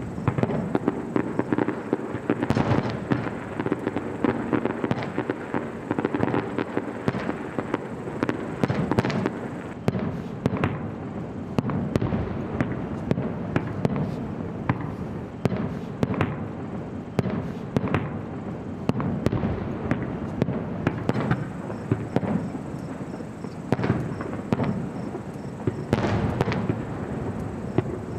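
Aerial fireworks going off in a continuous barrage: many sharp bangs and pops, some in quick clusters, over a constant rumble of launches and bursts.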